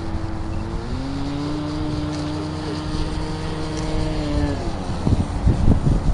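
E-flite Sea Fury RC model plane's stock 480 electric motor and propeller whining as it flies, a steady tone that drops slightly in pitch about a second in and fades out after about four and a half seconds. Wind buffeting the microphone near the end.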